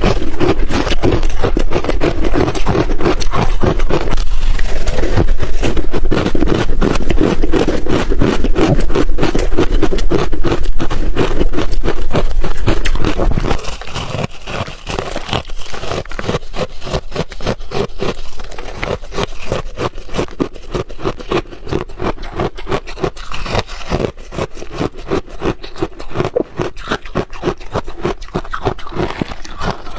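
Ice chunks being bitten and chewed close to the microphone: a continuous run of rapid crunching and crackling. It drops noticeably in loudness a little before halfway through.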